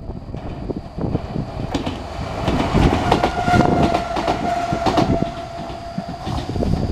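Enshu Railway 2000-series electric train (set 2007) running past, its wheels clattering over the rail joints. A long, steady tone sounds over it for about four seconds in the middle.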